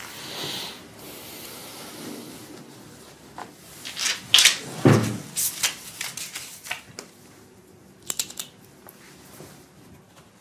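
Paper and a pen handled on a wooden desk: a run of sharp clicks and paper rustles, with a low thump about five seconds in, and a few more clicks near eight seconds as writing begins.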